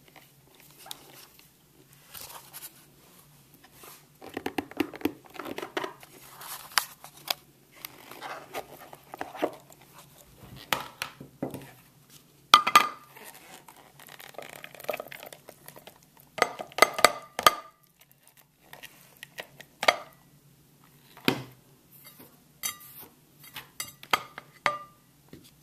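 Rice being scraped out of a plastic blender bowl into a plastic bowl set on a ceramic plate: irregular scrapes and knocks with a few short ringing clinks, the sharpest about halfway through and again a few seconds later.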